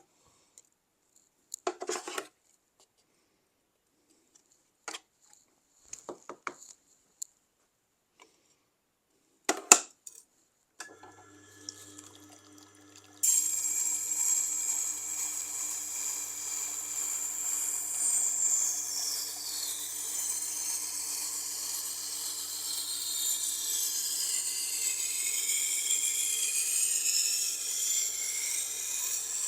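A few scattered clicks and knocks of handling. About 11 s in, a Tormek sharpening machine's motor starts with a steady low hum. About two seconds later a knife's steel edge begins grinding on the turning wet grindstone: a steady loud hiss with high whines that slide up and down in pitch as the blade moves along the stone.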